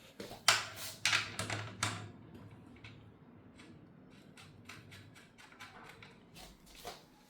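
A socket wrench on the rear axle nuts of a bicycle with an internal gear hub, as the nuts are undone. There are three loud metallic clicks in the first two seconds, followed by a long run of faint, quick ticks.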